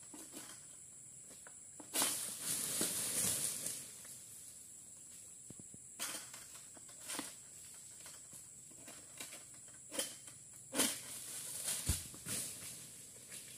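Oil palm fronds rustling and scraping as a long-poled harvesting sickle (egrek) works in the palm crown, with a long rustle about two seconds in, several sharp knocks later, and a dull thump near the end. A steady high insect drone sounds throughout.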